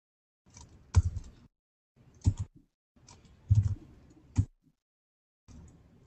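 Computer keyboard keys tapped a few times, spaced about a second apart, while typing numbers into a field, with sharp clicks that also carry a low thud.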